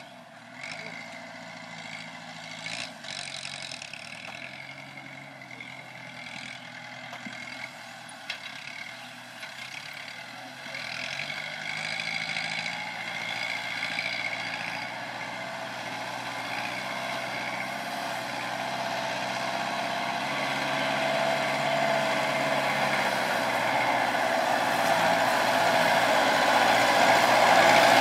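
Kubota tractor's diesel engine running, getting steadily louder as the tractor drives closer while working a sugarcane grab loader.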